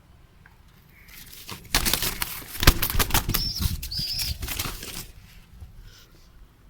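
A baby bird flapping its wings hard inside a large bucket for about three seconds, with two short high chirps near the middle.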